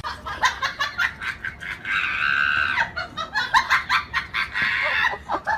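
A person laughing hard in quick, high-pitched peals, with a drawn-out squeal about two seconds in.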